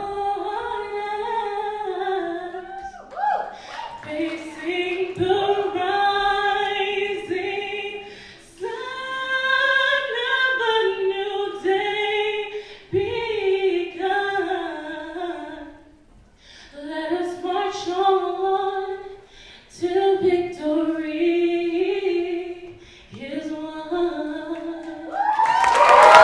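Unaccompanied singing: a single melody line sung in long held phrases with short breaks between them. Applause breaks out near the end.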